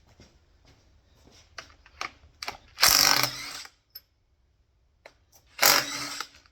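Tool work on a small-block Chrysler 318 during teardown: scattered light clicks, then two loud bursts of a ratcheting tool, each just under a second long.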